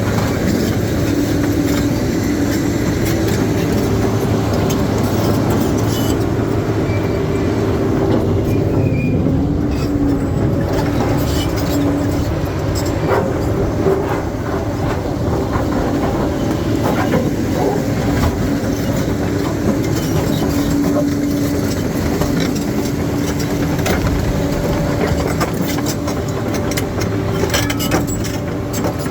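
Bulldozer working rocky ground: its diesel engine runs steadily under load while the steel tracks clank and scattered knocks and scrapes of stone come through.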